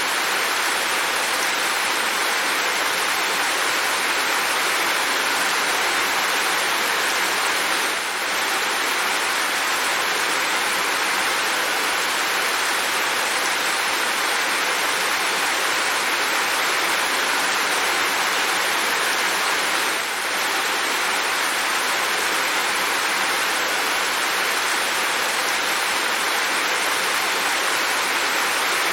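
Steady rain falling, an even hiss with no single drops or thunder standing out, dipping slightly in level twice.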